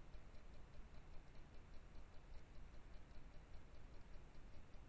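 Faint low rumble and hiss from a BestoU trail camera's recording, with an even ticking of about five ticks a second that is typical of the camera's own electronic interference.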